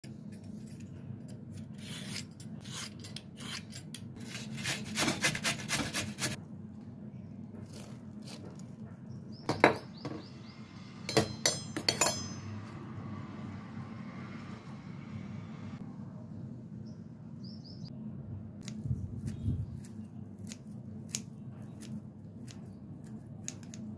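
Kitchen food-preparation sounds: first a run of rapid scraping strokes, then a steel spoon clinking and scraping in a steel bowl of mung dal flour, then kitchen scissors snipping fresh coriander in quick cuts.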